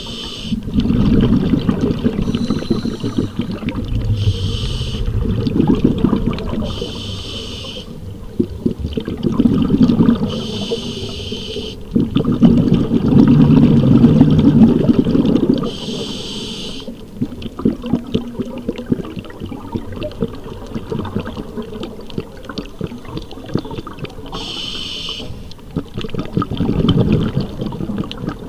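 Scuba regulator breathing heard underwater. About seven short hissing inhalations come a few seconds apart, with low, rumbling gurgles of exhaled bubbles between them, heaviest about halfway through.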